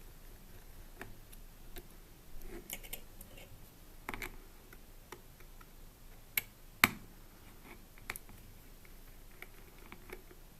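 Scattered small clicks and ticks of a tiny Phillips screwdriver turning out the screws of a Samsung Galaxy Ace phone, with the phone's plastic frame being handled; two sharper clicks come close together about two-thirds of the way through.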